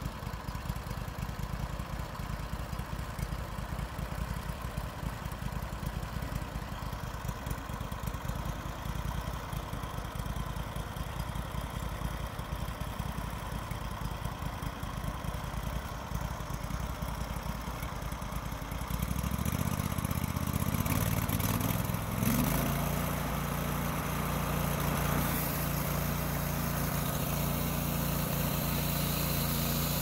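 Engine of a Hudson Oscar 336 Pro portable bandsaw mill idling steadily, then revved up about 19 seconds in, stepping up again a few seconds later and holding a steady, louder run at working speed.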